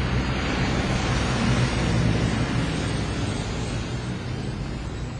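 Steady rumbling, whooshing noise with a low hum underneath, easing off slightly over the last couple of seconds.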